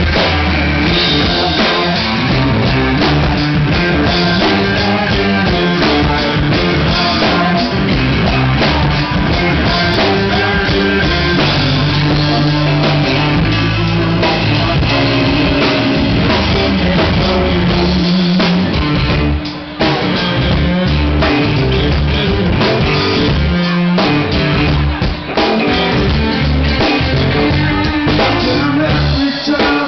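Live rock band playing: electric guitar, bass and drum kit, with a man singing lead vocals. The band drops out briefly about two-thirds of the way through, then comes straight back in.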